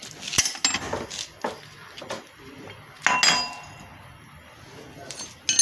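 Small metal motorcycle parts and tools clinking and clanking as they are handled and dropped among other parts in a bucket, a few separate sharp knocks with brief metallic ringing.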